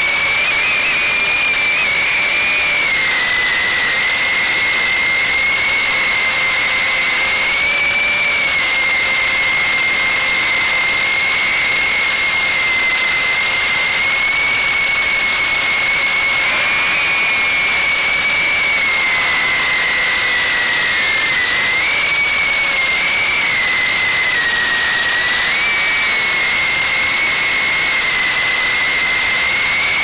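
Motors and 2-inch propellers of a GEPRC Cygnet FPV quadcopter in flight, a steady high-pitched whine whose pitch wavers slightly with throttle changes.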